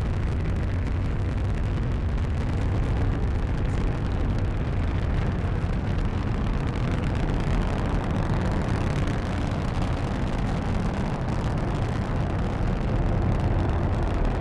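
Falcon 9 first stage's nine Merlin 1D engines firing during ascent: a steady, deep rumble with a hiss above it.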